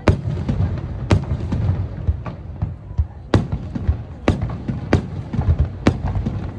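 Fireworks exploding: sharp bangs about a second apart, each with a short echo, over a continuous low rumble.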